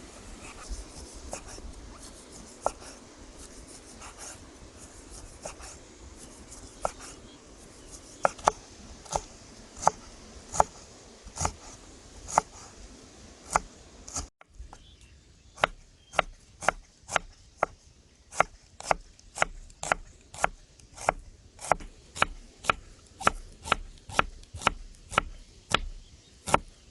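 Kitchen knife chopping on a cutting board: scattered cuts at first, then steady strokes about two a second after a brief gap about halfway.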